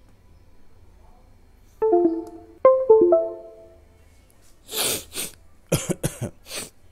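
A short melodic chime of about five quick notes, then a man with a cold coughing: two coughs followed by a fast burst of three or four more.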